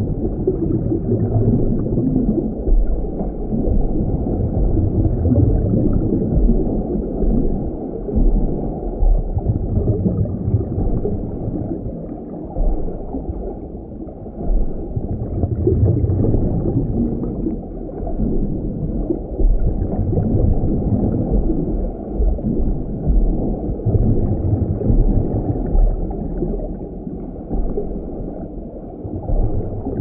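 Underwater ocean ambience: a low, muffled rumble and gurgle of moving seawater, swelling and easing every few seconds.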